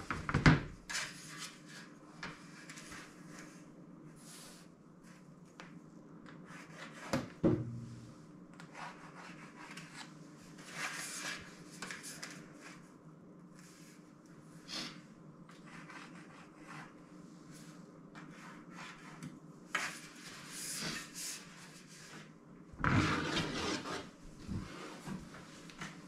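A pen scraping along a metal straightedge as lines are marked on a thin steel sheet, with rubbing as the straightedge slides over the sheet. There are sharp knocks at the start and about seven seconds in, and a louder clatter of the sheet being handled near the end.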